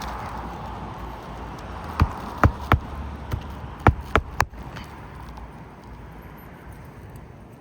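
Hammer driving roofing nails into an asphalt shingle: six or seven sharp strikes in quick succession, a fraction of a second apart, starting about two seconds in, with wind noise underneath.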